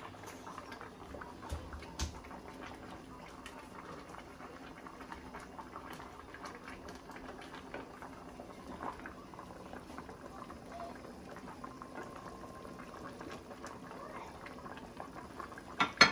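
Pot of catfish pepper soup boiling, a steady bubbling with small crackles, while a wooden spoon stirs it and knocks a few times against the stainless steel pot. A sharp, loud knock comes near the end.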